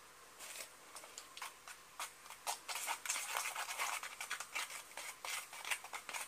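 A metal blade scraping and stirring thick cement-based aquarium glue paste in a plastic tub. The quick, repeated rasping strokes start faint and become busier and louder after about two and a half seconds.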